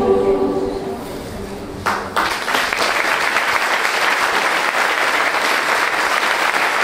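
A choir's final held chord fades away in the first second, and about two seconds in the audience breaks into applause that continues steadily.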